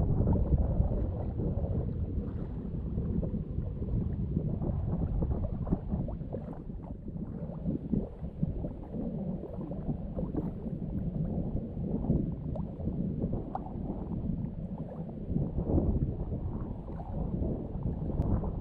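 Wind buffeting the microphone over choppy water lapping and gurgling: an uneven low rumble with no steady rhythm.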